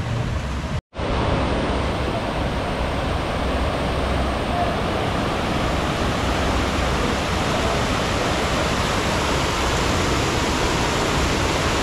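Steady rushing of water on a FlowRider surf simulator, its pumps driving a sheet of water up the wave ramp, after a brief dropout to silence about a second in.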